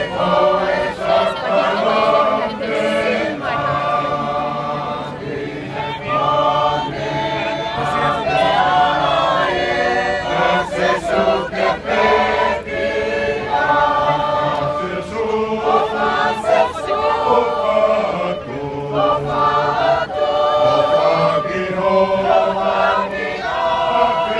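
A crowd of Tongans singing together as a choir, many voices holding long notes that change about every second.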